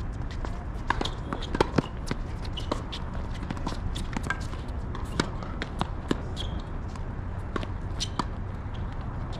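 Footsteps and scuffing on a hard tennis court with scattered sharp taps of a tennis ball, over a steady low rumble of wind on the microphone.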